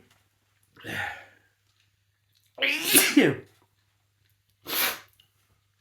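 Person sneezing in a fit brought on by snorted Chhinkni sneezing powder: a short breath about a second in, one loud sneeze about three seconds in, and a brief breathy burst near the end.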